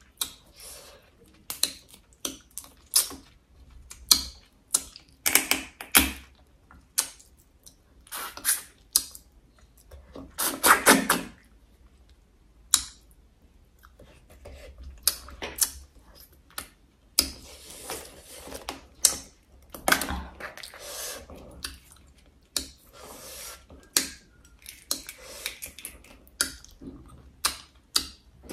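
Braised crab shell cracking and crunching as it is broken apart by hand and eaten: irregular sharp cracks and clicks, loudest in a dense cluster about ten seconds in.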